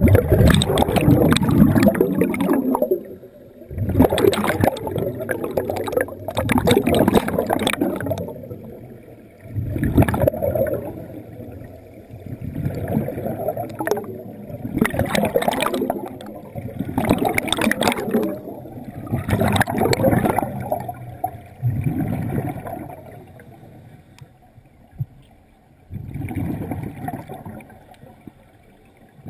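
Scuba diver breathing through a regulator underwater: a rush of exhaled bubbles about every two to three seconds, with a lull near the end.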